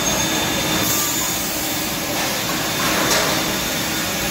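DMC 43-inch two-station wide-belt sander running with its sanding belts turning: a steady machine whir, with a brief hiss about a second in.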